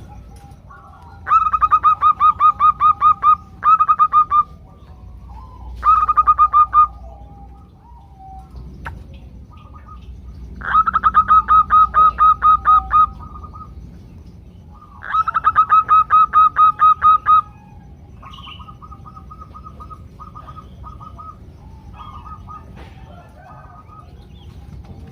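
Zebra doves giving rapid staccato calls: bouts of short, evenly repeated notes, several a second, each bout lasting one to two and a half seconds. There are five loud bouts, then fainter ones near the end. These are female calls of the kind used to draw males into singing.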